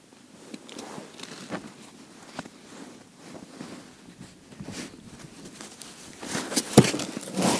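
Rustling of a winter jacket against the body-worn camera, with scattered small handling clicks. It grows louder near the end, with a sharp knock shortly before the close.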